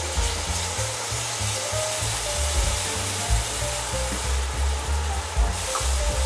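Minced garlic sizzling in cooking oil in a pan, stirred with a wooden spoon, under soft background music.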